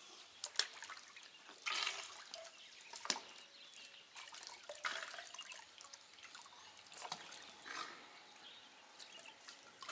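Water splashing and dripping in a plastic tub as a few-days-old elephant calf dips and swishes its trunk in it, in irregular small splashes about once a second.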